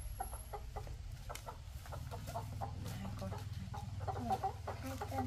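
A chicken clucking over and over in short calls while it is handled and set on a scale pan to be weighed, with a steady low hum underneath.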